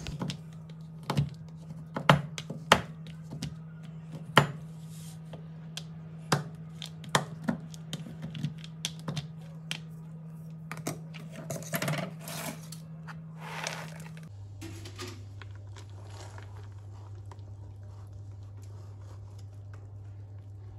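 A chef's knife chopping through a bar of dark chocolate on a plastic cutting board: irregular sharp chops and snaps, sometimes several a second, for most of the first two-thirds. After that, only faint scraping from a whisk stirring the chopped chocolate into thick pastry cream in a saucepan, over a steady low hum.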